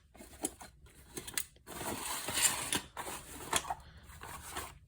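A fabric tool organizer and the hand tools in it being handled: rustling with light, irregular clicks and clinks, busiest about two to three seconds in.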